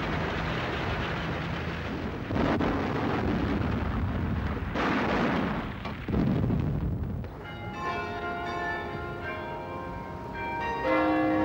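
Heavy gunfire and explosions of battle, with big blasts about two, five and six seconds in, dying away after about seven seconds. Church bells then start ringing, with a louder peal near the end.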